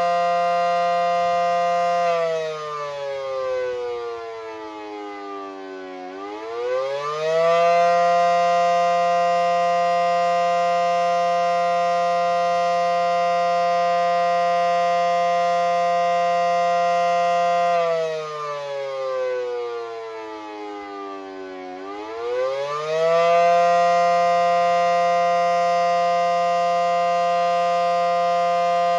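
Federal Signal SD10 electromechanical outdoor warning siren sounding the attack signal. It holds its full pitch, winds down in pitch for about four seconds, then winds quickly back up. This wail cycle happens twice, about ten seconds at full pitch apart.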